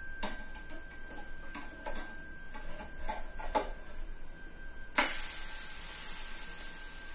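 Scattered light clinks and knocks of kitchen utensils against cookware, then about five seconds in a sudden onset of a steady sizzle from the hot oiled pan.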